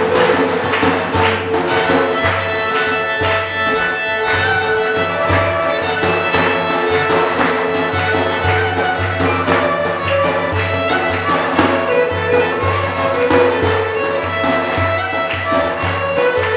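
Violin playing a melody over a steady beat on a large hand-held frame drum, with about two low drum strokes a second.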